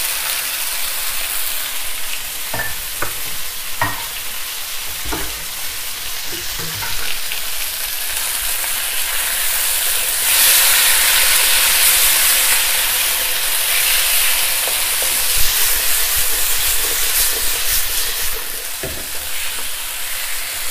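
Chicken pieces and potato cubes sizzling in an oiled wok over high gas heat, just splashed with rice wine, while they are stirred with a wooden spatula that knocks against the pan a few times in the first seconds. The sizzle gets louder about ten seconds in and drops back a couple of seconds before the end.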